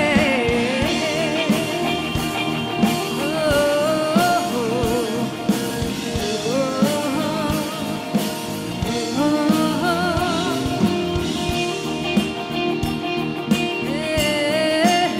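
Live rock band playing: a female lead vocal with vibrato over electric guitars, bass and a drum kit keeping a steady beat.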